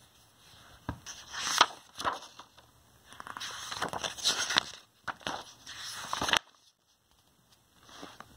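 A hardcover picture book being opened and its pages turned by hand: irregular paper rustling and crinkling with a few sharp clicks and scrapes, the loudest about a second and a half in, then quiet for the last couple of seconds.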